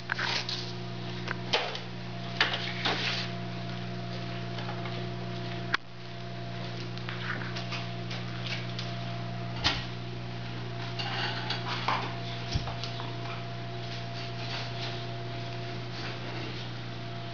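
Steady low electric hum of the shoeing rig's forge blower running, with a few scattered sharp knocks and clicks.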